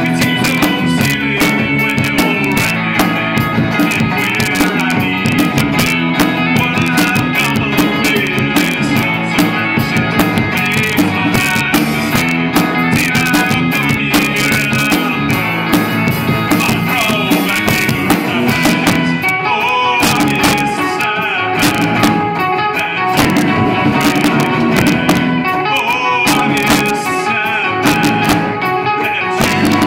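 Live indie rock band playing loud: electric and acoustic guitars, bass guitar and drums, heard through a cell phone's microphone. The sound is dense, with steady drum hits, and the playing changes texture about two-thirds of the way through.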